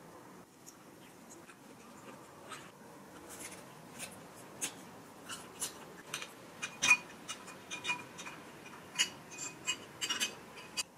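Ice cubes clinking against a drinking glass as it is lifted and drunk from: a string of sharp clicks and clinks that grows busier, the loudest about seven seconds in with a brief ring of the glass.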